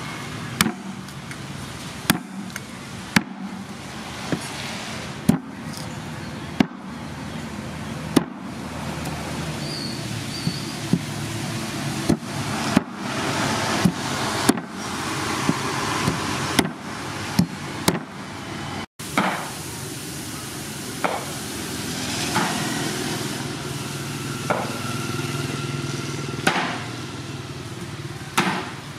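Heavy cleaver chopping raw pork ribs on a thick wooden chopping board: sharp knocks about one to two seconds apart, over a steady background noise.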